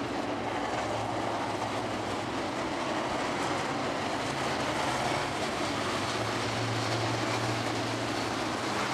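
Dirt modified race cars' V8 engines running in a steady low drone as the field circles slowly under caution.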